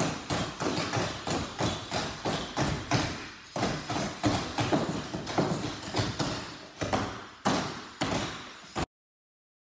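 Clogging shoe taps of a group of dancers striking the dance floor together in a fast, steady rhythm. The taps cut off abruptly near the end.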